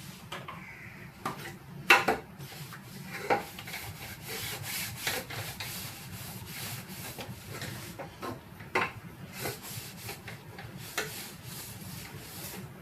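Fridge door racks being scrubbed by hand with a scrubbing pad: repeated rubbing and scraping strokes, with an occasional knock as a rack is moved.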